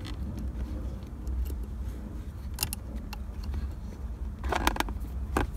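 Light metallic clicks and scrapes as a small J-shaped metal retaining pin is worked around the base of a shift knob. A few clicks are scattered through and a short cluster comes near the end, over a low steady hum.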